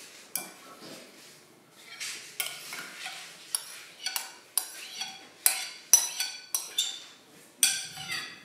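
A metal spoon scraping thick yogurt out of a bowl into a glass mixing bowl, clinking against the rims: scraping with about ten sharp, ringing taps from about two seconds in until near the end.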